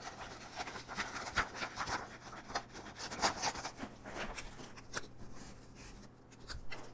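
Soft scratching and rustling: sheets of construction paper handled on a cardboard box, then a marker drawing short strokes on a paper square.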